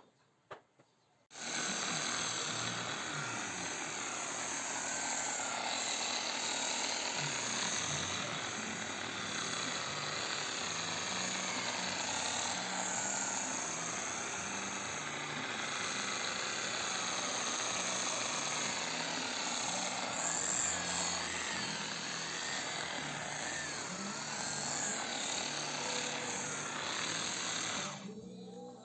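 A handheld power tool running continuously on wood, its pitch wavering as it works. It starts suddenly about a second in and cuts off suddenly near the end.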